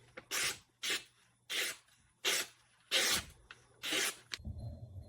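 Kanetsune Seki chef's knife blade scraping across a whetstone in repeated sharpening strokes, about six short strokes at a steady pace, stopping about four seconds in.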